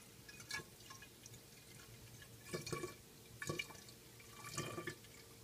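Liquor being poured from a bottle through a plastic funnel into an empty glass wine bottle: a few short, irregular gurgles and drips, mostly in the second half.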